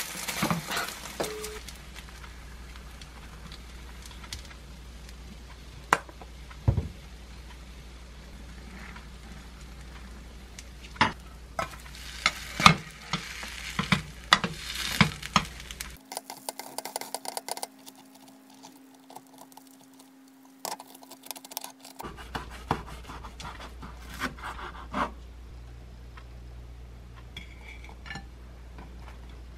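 Egg-soaked bread sizzling as it fries in a small square nonstick egg pan, with a metal spatula scraping and clicking against the pan as the toast is pressed and turned. Further on, a few sharp clicks and knocks of utensils.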